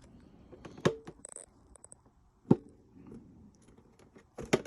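Hands handling the plastic case of a G-Shock wall clock, feeling for the small button on its back. Sharp knocks and clicks against the plastic: one about a second in, another about two and a half seconds in, and a quick double knock near the end.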